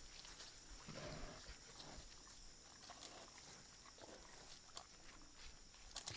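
Faint sounds of Hokkaido brown bears moving about close to a trail camera: light scratching and rustling, with a brief low sound about a second in, over a steady faint high hiss.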